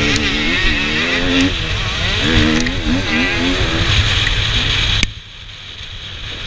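KTM 250 EXC two-stroke enduro motorcycle engine revving hard and falling back again and again as the rider accelerates and shifts, heard from on the bike. About five seconds in, the sound drops suddenly to a quieter, duller engine note.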